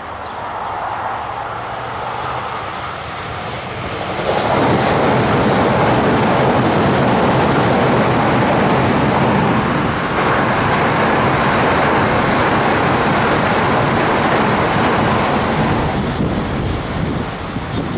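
Siemens electric multiple-unit suburban train passing at speed: the rush of wheels on rail swells about four seconds in, holds steady, and eases off near the end.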